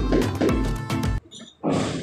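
Background music with a steady beat that cuts off a little past a second in, followed by a short noisy sound near the end.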